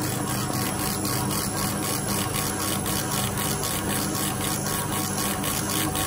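Homemade CO2 laser cutter raster-engraving: the head's stepper-driven carriage shuttles back and forth, making an even, rapid rhythm of several strokes a second over a steady machine hum.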